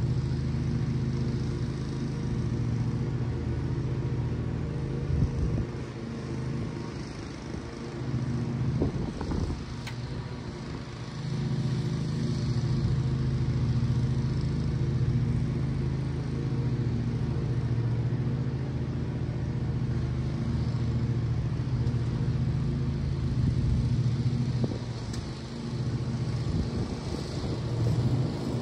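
Lawn mower engine running steadily, easing off briefly twice.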